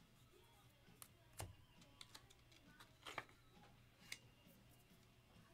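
Near silence, broken by a few faint clicks and taps of trading cards and plastic card holders being handled, the clearest about a second and a half in and again about three seconds in.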